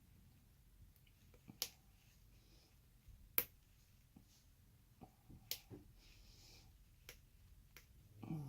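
Faint, sharp clicks from a lock pick working the pins of an ABUS 83/55 padlock's cylinder under tension, a few isolated clicks a second or two apart, the loudest about three and a half seconds in.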